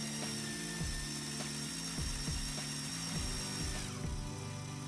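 Background music with a steady beat, over the thin, steady whine of a small Lego electric motor, which stops about four seconds in.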